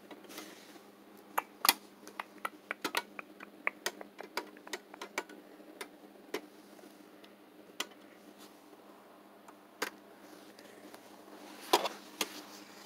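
A run of sharp, light clicks and taps of plastic and metal as a die-cast toy car and its plastic packaging are handled: quick and dense in the first few seconds, then scattered, with a short cluster near the end.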